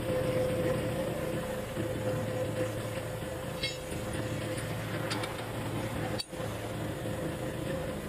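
A steady engine drone runs throughout. Over it come a few light metallic clinks, about three and a half and five seconds in, as wheel nuts and tools are handled at a truck wheel.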